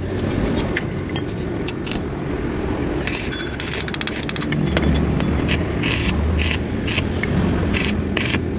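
Stick welding arc crackling and spitting, with a run of sharp strikes from about three seconds in, as spot welds are laid on the broken wheel bearing's outer race in a Honda CD 70 rear sprocket hub. The welds heat the jammed race so that it lets go of its seat.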